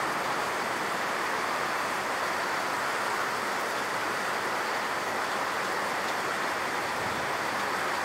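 A steady, even rushing noise that holds at one level, with no distinct tones or knocks.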